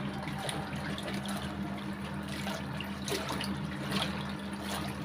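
Single-tub washing machine running: a steady motor hum under water sloshing and splashing in the tub.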